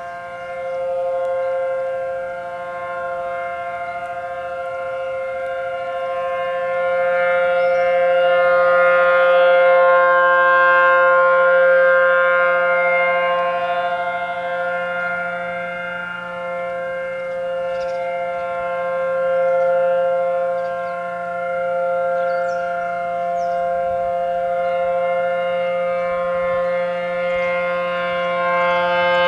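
Outdoor civil-defense warning siren sounding a steady, unchanging tone with many overtones. Its loudness swells and fades slowly, peaking about every ten seconds.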